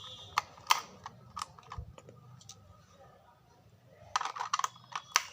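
Sharp plastic clicks and taps of AA batteries being fitted into a toy excavator's battery compartment: a few scattered clicks, then a quick cluster near the end.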